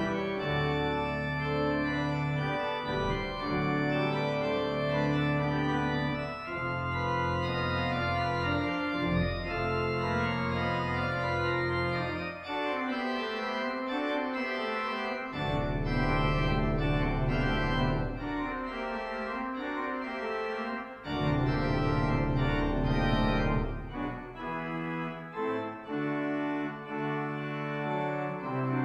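Church organ playing: sustained chords over deep pedal bass notes that enter and drop out, with a rippling inner melody twice in the middle.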